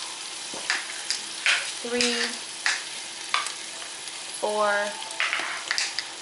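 A spoon scraping sauce out of a plastic tub and tapping it into a pot of browned ground turkey, a run of short scrapes and knocks over a faint steady sizzle from the pan. Two brief squeaks come through, one about two seconds in and a rising one near the end.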